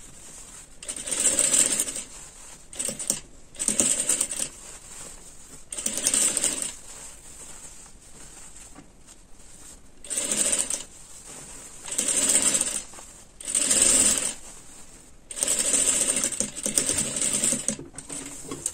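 Electric sewing machine running in short stop-start bursts of about a second each, some eight in all, with a longer run near the end, as a sleeve is stitched into the armhole of a garment.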